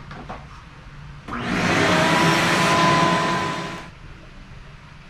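Vacuum cleaner running for about two and a half seconds, sucking metal drilling chips off a machine vise: a steady rush of air with a whine running through it, starting about a second in and then cutting off.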